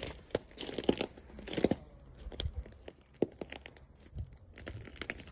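Footsteps crunching and crackling over burnt debris (flakes of charred chipboard, ash and scrap), an irregular crunch about every two-thirds of a second.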